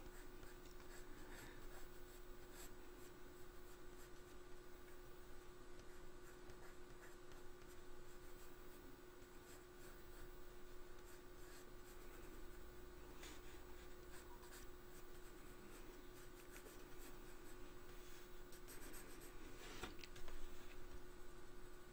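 Faint scratching of a dark sepia coloured pencil sketching lightly on drawing paper, with a steady low hum beneath and a small tap near the end.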